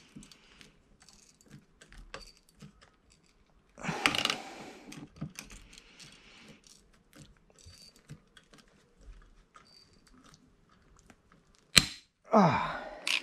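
Hand rivet gun pulling a 3/16-inch stainless steel blind rivet: a run of small clicks and creaks as the gun's handles are worked, a louder burst about four seconds in, then one sharp crack near the end as the mandrel snaps and the rivet sets.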